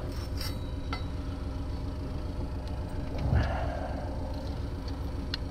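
Steady low mechanical hum with a few faint metallic clicks of hand tools being handled, and a short louder rustle about three seconds in.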